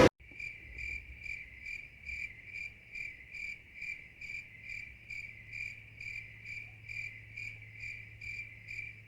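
Cricket chirping: a steady high trill that pulses evenly about twice a second, over a faint low hum.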